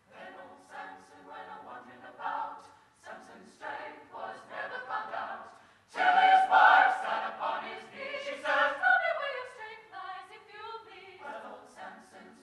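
Mixed choir of men and women singing, in short phrases that grow much louder about halfway through.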